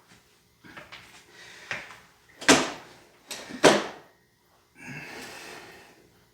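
A man breathing hard while doing push-ups: two sharp, loud breaths about a second apart near the middle, then a longer breath out.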